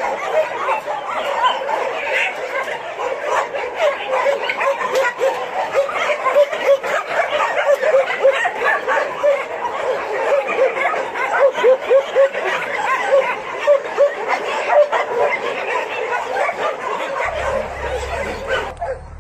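A group of young puppies yipping and whining continuously, many short high calls overlapping; the calls stop suddenly near the end.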